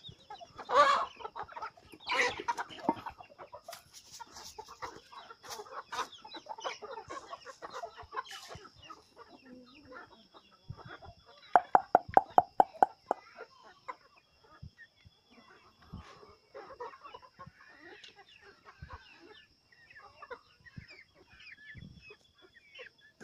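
Chickens clucking and calling, with loud calls in the first few seconds and a quick run of loud clucks about halfway through.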